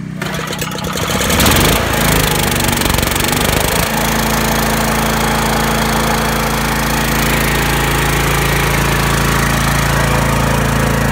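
Portable generator's engine pull-started: it catches and revs up over the first few seconds, then settles about four seconds in to a steady, even run.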